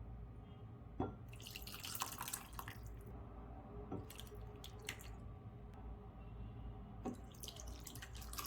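Hot ginger garlic soup being ladled into a serving bowl: faint liquid pouring and splashing in three short spells, each starting with a light knock of the ladle.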